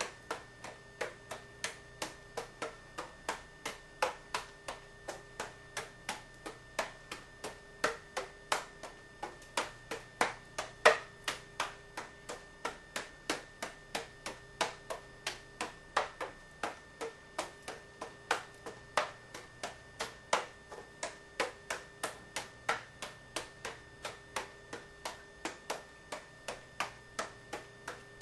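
Three juggling clubs juggled in a steady cascade: an even patter of short taps, about three a second, as each club is caught in the hand.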